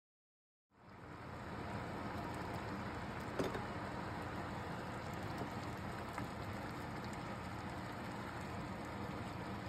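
Rice boiling in spiced water in a large pot, a steady bubbling hiss that starts suddenly about a second in. There is one sharp knock a few seconds in.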